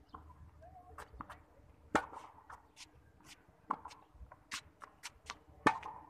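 Tennis balls being hit with a racket and bouncing on a hard court: a run of sharp pops and knocks, the loudest about two seconds in and again near the end.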